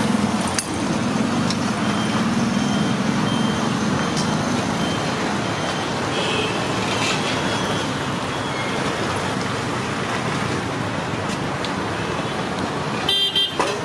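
Steady roar of road traffic from a busy street, with an engine's low drone in the first few seconds.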